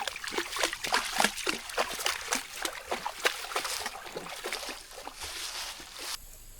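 Irregular wet splashing and sloshing in shallow water and mud at a pond's edge, several small splashes a second, cutting off abruptly near the end.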